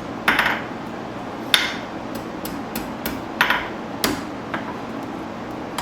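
Blacksmith's hand hammer striking hot steel bar on the anvil to roll a small scroll: a few irregular, sharp blows one to two seconds apart with lighter taps in between.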